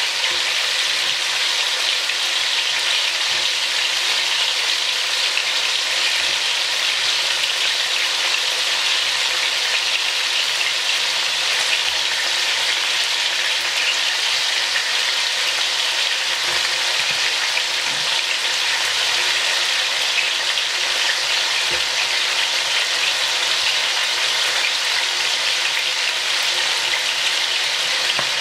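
Seasoned oxtail pieces sizzling steadily in a stainless steel pot as they brown in their own juices and seasoning.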